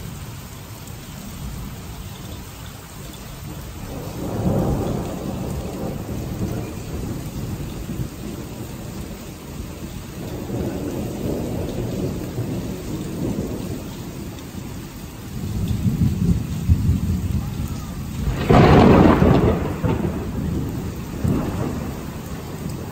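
Thunderstorm: thunder rumbling in several long peals over steady rain, the loudest peal near the end.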